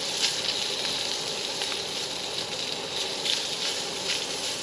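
SPAM frying in a small skillet on a camp stove: a steady sizzle with scattered pops and crackles.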